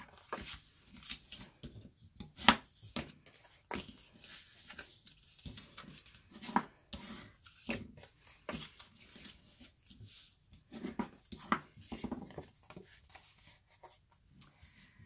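Thick white cardstock being folded along its score lines and creased by hand: irregular crisp paper crackles and taps, the loudest about two and a half seconds in.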